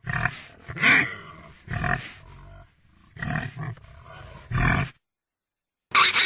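Pig grunting: about five short, rough grunts over the first five seconds, then a higher-pitched squeal starting near the end.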